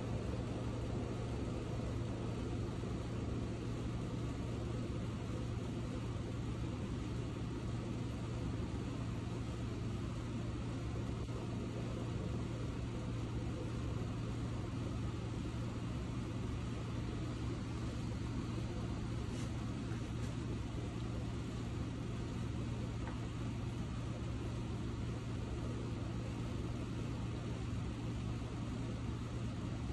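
Electric hair clippers running with a steady low buzz.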